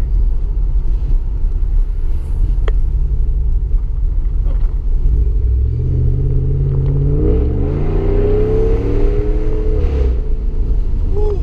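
Exhaust of a 2015 Ram 1500's 5.7L Hemi V8 with muffler delete and Y pipe, heard inside the cab while driving: a steady low drone, then about halfway through the engine pulls harder and rises in pitch for several seconds before dropping back near the end.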